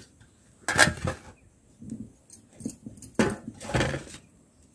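Stainless steel dishes clinking and clattering: a steel plate scraped and tapped against a steel pot, and the pot set down on a steel platter. Two louder bursts of clatter come about a second in and after three seconds, with light clinks between them.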